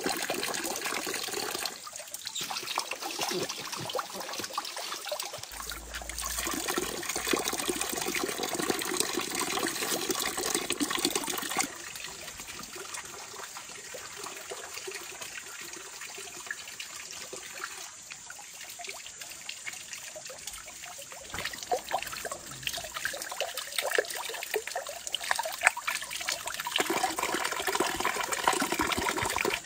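Running water with trickling and splashing. The level changes abruptly about two seconds in, about twelve seconds in, and near the end.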